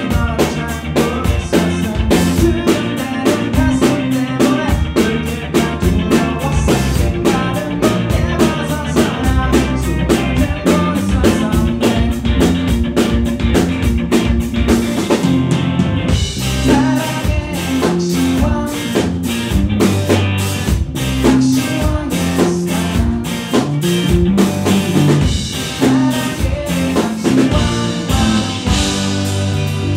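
Rock band playing live: drum kit, electric guitar and bass guitar, with singing over them.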